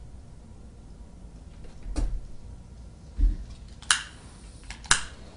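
A few short knocks and clicks of small tools and connector parts being handled and set down on a workbench: a dull thump a little after three seconds, then two sharp clicks about a second apart.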